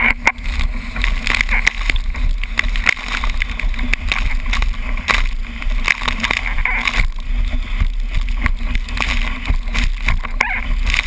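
Wind buffeting the microphone of a board-mounted action camera, with water rushing and spray spattering as a windsurfer planes fast over choppy water. Full of sharp crackles and splashes over a steady rumble.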